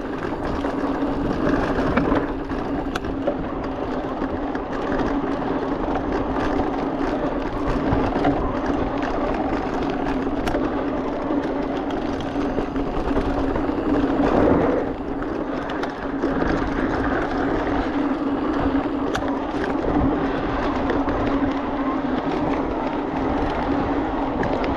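Wind rushing over an action camera's microphone and knobby tyres rolling on a dirt trail as a Giant Reign E+ electric mountain bike descends, with a steady low hum under it all. Scattered rattles and knocks from the bike over bumps, louder for a moment about fourteen seconds in.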